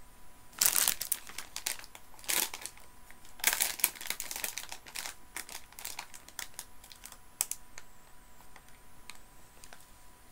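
Plastic sweet packet crinkling as it is handled, in loud bursts about half a second in and again around three and a half seconds in, then smaller scattered crackles.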